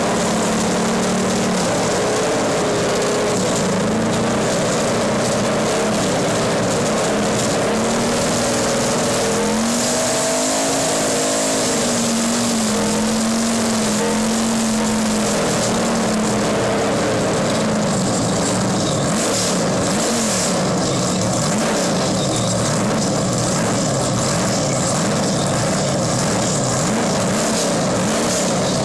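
Roush Ford NASCAR Cup stock car's V8 engine running loud while parked, held at a fast idle with slow rises in pitch, then revved up and down in quick blips through the second half.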